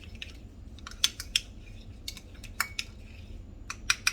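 A utensil clinking against a dish of sauce, in a series of irregular sharp clicks, over a steady low background hum.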